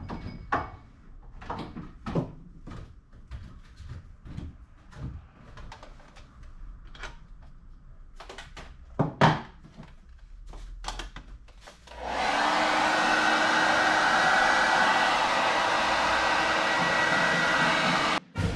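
Scattered clicks and knocks, one louder knock about nine seconds in. Then a hair dryer switches on about twelve seconds in, runs with a steady blowing whoosh for about six seconds, and cuts off.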